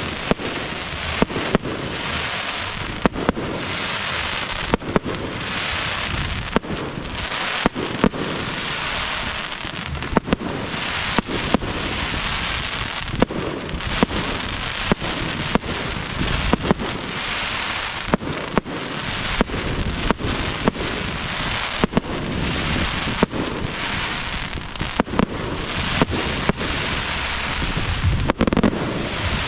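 Aerial fireworks going off: sharp bangs from bursting shells, irregular at about one or two a second, over a continuous crackling hiss.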